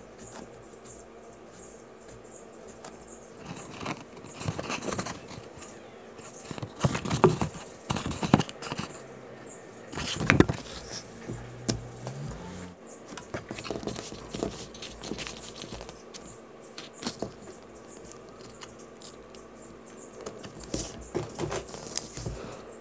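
Hands working leather and small tools at a bench: scattered rustles, light taps and clicks, loudest about seven and ten seconds in.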